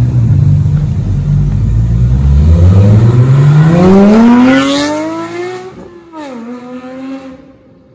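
Porsche 911 flat-six engine accelerating hard past, its note rising steadily in pitch and loudest about four seconds in. It then fades as the car pulls away, with a quick drop in pitch near six seconds followed by a steadier, fainter note.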